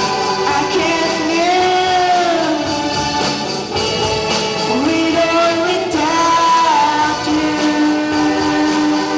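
A band playing a pop-rock song with a singer who holds long notes over the accompaniment; the last long note begins near the end.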